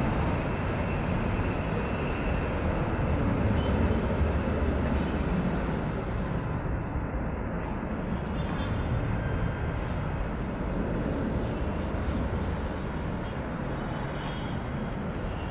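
Airbus A319 jet engines at takeoff power during the takeoff roll: a steady, low rumbling jet noise.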